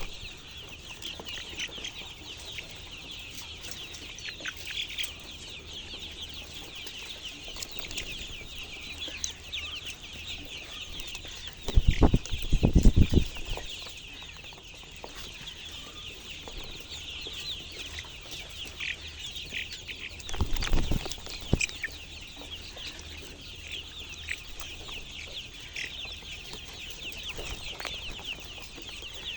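A flock of chickens calling all at once, a dense unbroken chatter of short high chirps. Twice, about twelve and about twenty seconds in, a loud low rumble lasting around a second cuts in.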